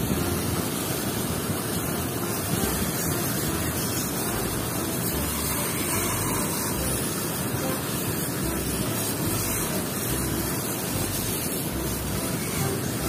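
Steady rush of water spraying over dirty toy cars as they are washed.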